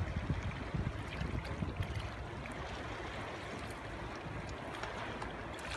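Water washing and lapping, with wind buffeting the microphone as a low rumble that eases after the first couple of seconds; small splashing ticks are scattered throughout.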